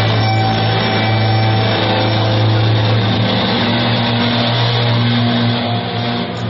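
A rock band with strings holds a final chord: distorted electric guitar and bass ring steadily with no drum beats, and the chord begins to die away near the end.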